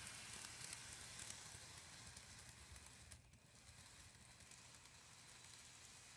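Faint running noise of an N gauge model train on sectional track: a light hiss and scattered small clicks that grow fainter after about three seconds as the train moves away.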